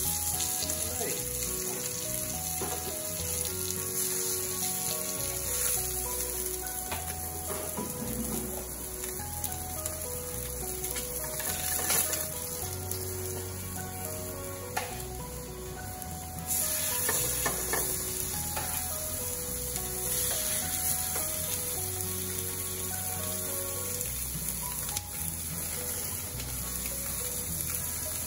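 Sea trout fillets sizzling as they sear in hot olive oil in a non-stick pan, growing louder about halfway through as more fillets are laid in. Background music plays underneath.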